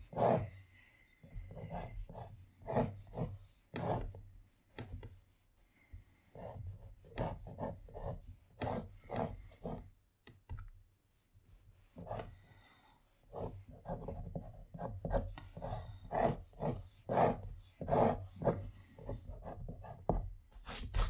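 Pencil sketching on watercolour paper: an irregular run of short scratching strokes, with a pause about ten seconds in.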